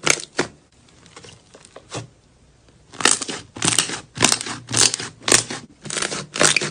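Slime being squeezed and pressed by hand, crackling and crinkling in rhythmic squishes about twice a second. The squishes pause briefly after the start and resume about three seconds in.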